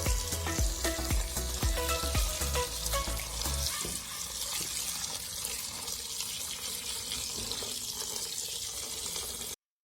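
Food frying in hot oil in a pan, a steady sizzling hiss. Background music with a bass line plays over it and stops about four seconds in. The sound then cuts off abruptly just before the end.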